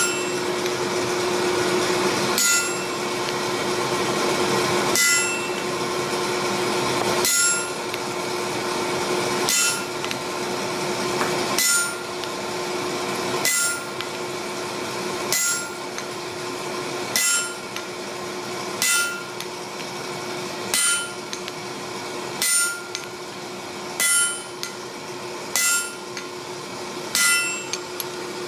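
Hammer blows on metal about every two seconds, each strike ringing, over the steady roar of a running forge.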